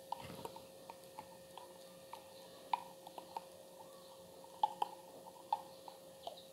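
Small metal spoon scraping and clicking against the inside of a jar of ghee, scattered light ticks with a few sharper clinks a little under three seconds in and around five seconds in, over a faint steady hum.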